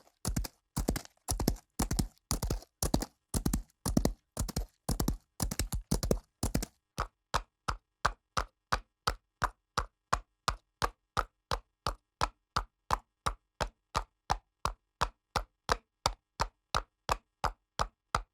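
Horse hoofbeats as a sound effect. For the first six or so seconds they come as heavy clustered hoof thuds. They then change to lighter, evenly spaced clip-clop hoofbeats, about three a second.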